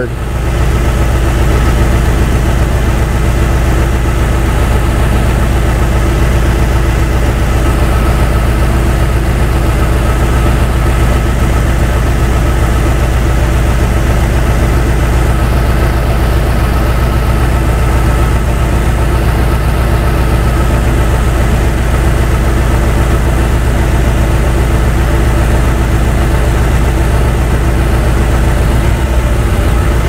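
A 2003 Ford Thunderbird's 3.9-litre V8 idling steadily.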